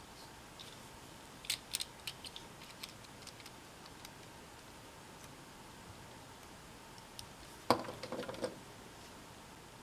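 K'nex plastic parts clicking as the chain and gears are handled, with a run of sharp clicks about a second and a half in. Near the end comes the loudest sound, a knock and a short rattle as the plastic gear-and-chain assembly is set down on a wooden table.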